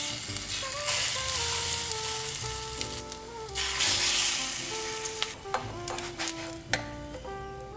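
Cinnamon-sugar French toast roll-ups sizzling in a hot frying pan. The hiss is loudest from about a second in to past the middle, and a few small clicks come near the end as the rolls are turned.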